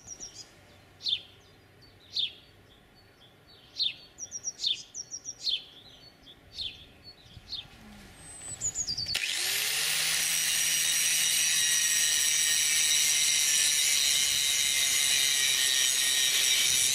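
A small bird chirps repeatedly in short sharp notes. About nine seconds in, a hand-held angle grinder spins up with a rising whine, then grinds the welded corner of a steel square-tube tank at a steady high whine.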